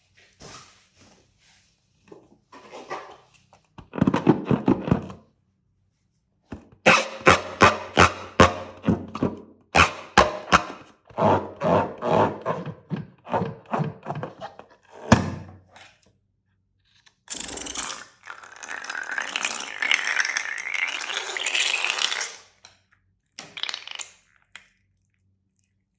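Slime being handled: bursts of sticky squelching and a quick run of popping squishes as it is pressed and pulled, then a longer crackly rustle.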